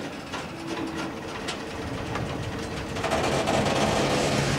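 Freight train of tank wagons starting to roll: scattered knocks and clanks from couplings and running gear, with the sound growing louder and steadier about three seconds in as the train picks up.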